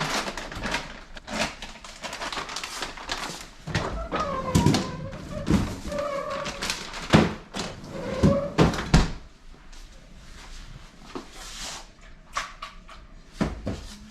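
Kitchen clatter: a quick run of knocks and clunks from cookware, utensils and cupboard doors, busiest and loudest in the middle, with a few short wavering tones among them.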